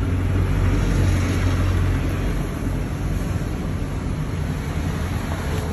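Steady low motor-vehicle rumble with a broad hiss, a little louder in the first two seconds.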